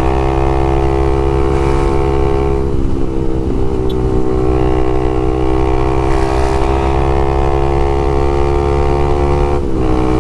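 Honda CBX 250 Twister's single-cylinder four-stroke engine pulling hard through a LeoVince aftermarket exhaust, the note holding steady. It breaks off briefly about three seconds in and again near the end.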